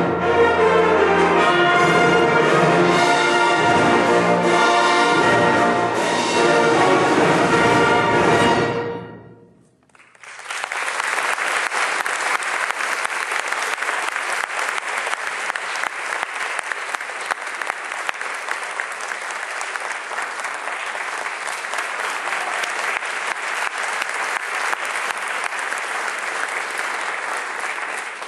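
Symphonic concert band, brass prominent, playing a loud closing passage that dies away about nine seconds in. After a brief hush, the audience applauds steadily.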